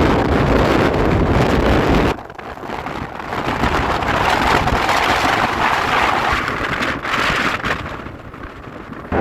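Storm wind buffeting the microphone with a heavy rumble. About two seconds in the rumble drops away suddenly, leaving a hissing rush of wind.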